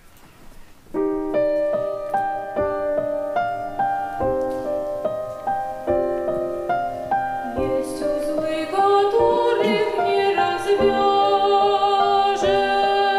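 Grand piano playing the introduction to a choral song, a run of struck chords starting about a second in. From about eight seconds in, held, wavering notes join over the piano.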